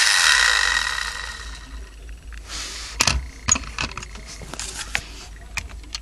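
Electronic engine-sound effect from the small speaker of a toy Ferrari FXX model car, dying away over about the first two seconds. Scattered light clicks and taps follow as the toy is handled on a table.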